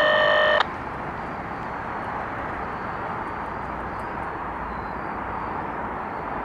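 A loud, steady multi-pitched tone, like an electronic beep or horn chord, cuts off abruptly just under a second in, leaving a steady, even rushing background noise.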